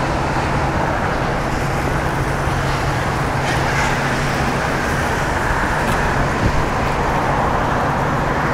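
Steady freeway traffic noise: cars passing at speed on a flooded road, with tyres hissing through standing water.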